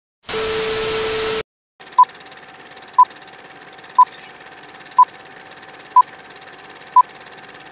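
TV-static hiss with a steady test tone for about a second. It cuts off, and then comes an old film-leader countdown sound effect: a short beep once a second, six times, over a faint steady hum.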